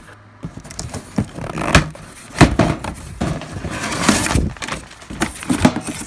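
Cardboard packaging and a paper instruction booklet being handled: rustling and scraping with a string of sharp knocks and taps, the sharpest about two and a half seconds in.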